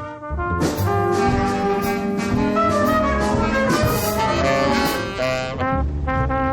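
Jazzy brass-band music, trumpets and trombones playing held notes with a fuller ensemble passage through the middle.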